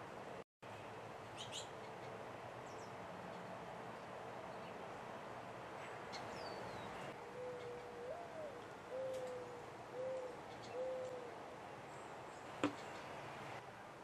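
A dove's low cooing in the second half: a first note that swoops up and back down, then three shorter, steady notes about a second apart. A few faint, thin high chirps from small birds come before it, and a single sharp click sounds near the end.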